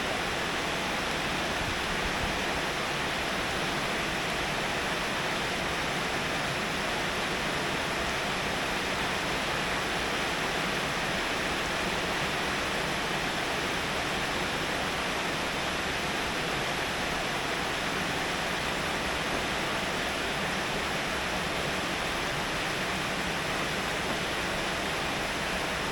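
Heavy rain falling: a steady, unbroken hiss that holds at the same level throughout.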